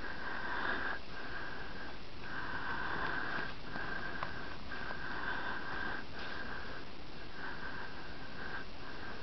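Border Collie snuffling and sniffing hard with her nose buried in powder snow while burying a tennis ball. It comes in repeated bursts of about a second each, with short breaks between them.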